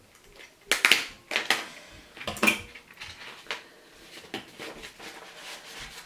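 A hand stapler clacking as it staples folded paper: a few sharp clicks in the first two and a half seconds, then fainter clicks and handling of the paper.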